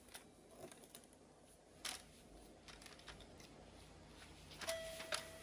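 Faint clicking of the plastic buttons on a baby's toy musical keyboard being pressed, with a short electronic note sounding near the end.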